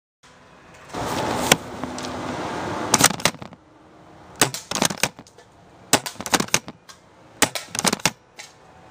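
Airsoft FAMAS rifle firing single shots in a quick timed string, with sharp snaps in small clusters of two or three: the shots and the BBs striking hanging targets. A steady hiss runs under the first few shots.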